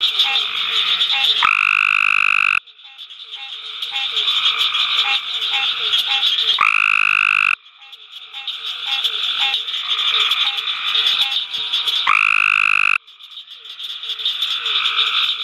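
Adult male Cope's gray tree frog giving its advertisement call: a loud, fast buzzy trill about a second long, repeated three times about five seconds apart. Between the trills there is a steady background chorus with rhythmic short notes.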